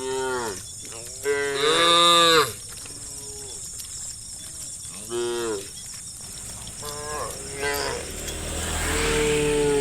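Cattle mooing in turn, about five calls, the loudest and longest about a second and a half in. A rushing noise swells under the last moo near the end.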